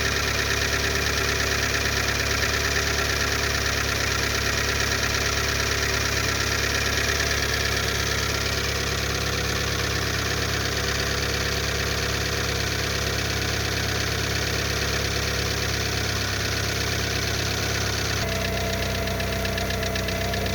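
Lada Largus's 1.6 16-valve VAZ-21129 engine idling cold, with a knock that newly replaced hydraulic lifters have not cured; the knock fades gradually as the engine warms. The exhaust is loud through a torn flex pipe. The idle note shifts near the end.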